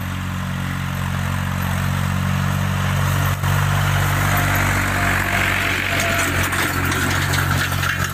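Force OX25 tractor's three-cylinder 1947 cc diesel engine running at a steady pitch while the tractor pulls a tillage implement through orchard soil. A hiss from the implement and churned soil grows louder in the second half.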